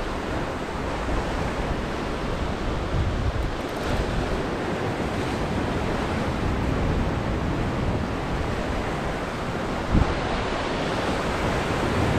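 Ocean swells surging and breaking white against a lava rock shoreline, with wind on the microphone. A short thump comes near the end.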